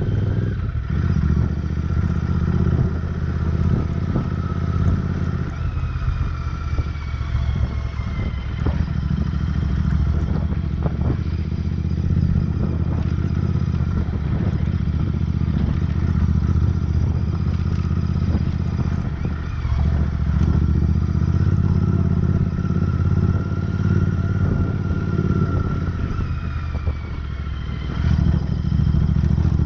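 Royal Enfield Interceptor 650's parallel-twin engine running as the bike rides a rough dirt trail, easing off a few times. Scattered knocks and clatter come from the bike going over stones and ruts.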